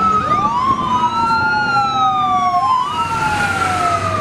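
Fire-engine wail siren: each tone rises quickly, then falls slowly over about two and a half seconds, and the next tone starts before the last has died away.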